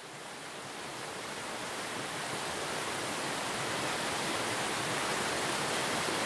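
Rushing water of a rocky stream, an even hiss that fades in steadily from silence.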